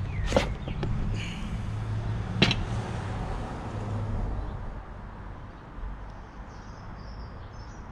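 A new Yuasa motorcycle battery is slid out of its cardboard box and set down on a glass tabletop: a knock just after the start, then a sharp clack about two and a half seconds in. A steady low hum runs underneath.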